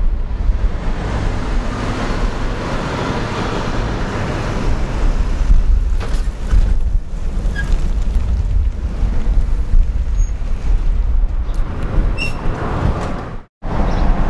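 Road traffic going by, with wind rumbling on the microphone; a vehicle's noise swells in the first few seconds. The sound cuts out for a moment near the end.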